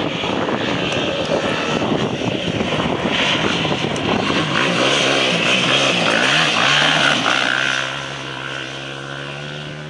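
Sport quad bike's engine revving hard through a gravel corner, its pitch rising and falling with the throttle as it passes close, loudest about five to seven seconds in. Near the end the engine settles to a steadier, quieter note as the quad pulls away.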